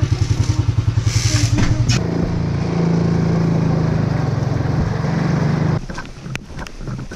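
Four-wheeler (ATV) engine idling with a fast, even putter, then pulling away and running steadily. It cuts off suddenly about six seconds in, leaving light scattered knocks and scuffs.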